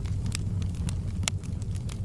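Wood fire crackling: a low steady rumble of flames with scattered sharp pops and snaps, the loudest about a second and a quarter in.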